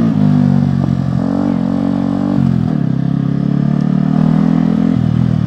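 Yamaha R15 sport bike's single-cylinder engine running under way. Its pitch steps down and back up about two and a half seconds in and drops again near the end as the throttle and gears change.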